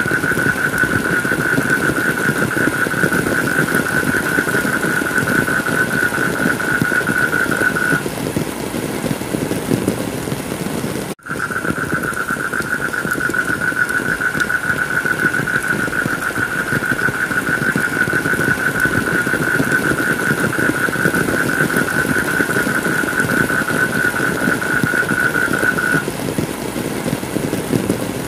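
Steady heavy rain falling, with a continuous high-pitched drone over it. The drone stops about eight seconds in and comes back a few seconds later, just after a momentary break in the sound. It stops again near the end.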